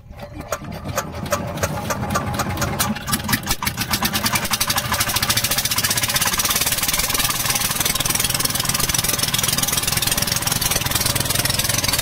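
Small inboard engine of a wooden river fishing boat starting up: its firing beats come slowly at first, quicken over the first few seconds, then settle into a fast, steady run.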